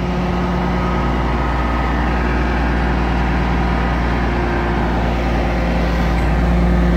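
Garbage truck's diesel engine idling close by: a steady low hum with a constant drone, rising slightly in level near the end.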